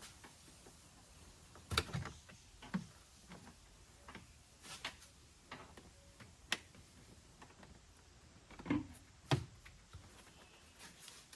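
Irregular clicks and a few dull knocks from car trim and parts being handled during disassembly, the loudest about two seconds and nine seconds in.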